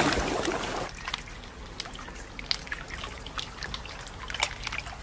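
Water trickling and dripping in small irregular splashes, after a louder rush fades out about a second in.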